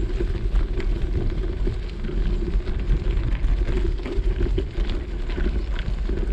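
Wheels rolling over a gravel road: a steady crackly crunch of gravel with a low rumble of wind on the microphone.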